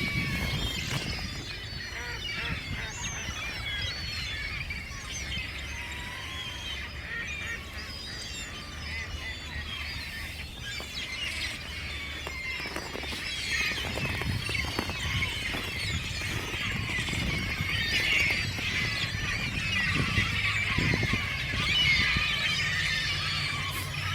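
A large flock of seagulls and ducks calling all at once, a dense chorus of many overlapping cries and squeals, getting a little louder in the second half.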